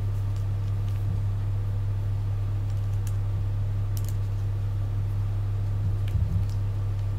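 A steady low hum, with a few faint clicks about three and four seconds in and a soft knock near the end.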